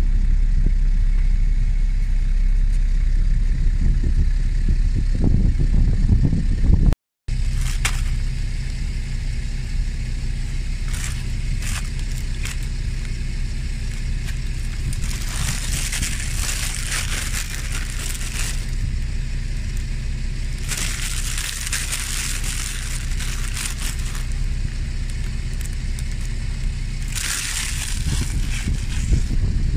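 A car engine running with a steady low rumble, cut off briefly about seven seconds in and then carrying on. Over it come three stretches of rustling hiss a few seconds each, in the second half.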